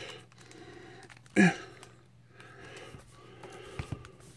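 Soft breathing and faint handling noise as a plastic action figure is held and positioned. A short grunt falls in pitch about a second and a half in, and a few light plastic clicks come near the end.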